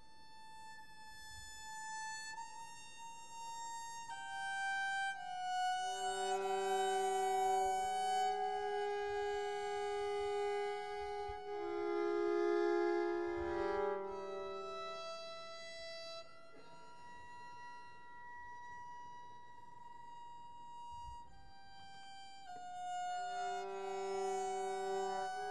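Two violins playing a slow duet of long held notes with mutes on, often sounding two notes at once. The playing swells louder in the middle, turns softer, then grows louder again near the end.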